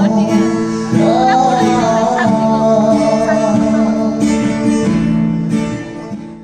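Live acoustic guitar and a singer performing a song, with one sung note held for several seconds. The music fades out near the end.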